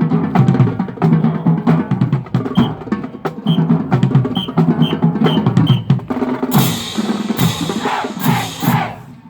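Marching band drumline playing a driving percussion passage: snare drums rattling over a pulse of low pitched bass drum notes. A bright crashing wash of cymbals comes in over the top for the last few seconds.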